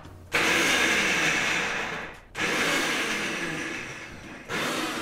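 Electric mixer grinder with a small steel jar, run in short pulses to mince green peas: a burst of about two seconds, a brief stop, a second burst that gradually fades, then a third starting near the end.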